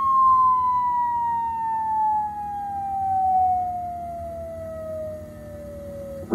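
A rubbish bin's built-in speaker plays a long, slowly falling whistle, the cartoon sound of something dropping a very long way down, set off by a piece of litter thrown in. The single tone glides steadily down in pitch and fades a little, then cuts off near the end.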